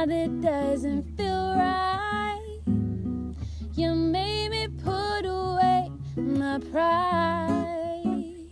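Acoustic duo performing a song: acoustic guitar played underneath, with sung vocal phrases whose pitch slides and bends, separated by short gaps.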